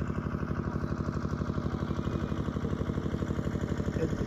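An engine running steadily at idle, with a rapid, even pulse.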